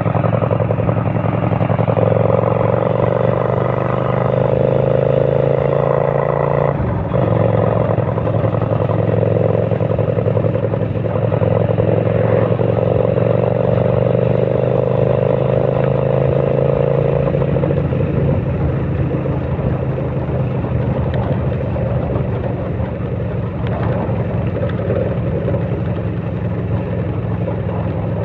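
Kasinski Mirage 250 motorcycle's V-twin engine running steadily with a loud rumble.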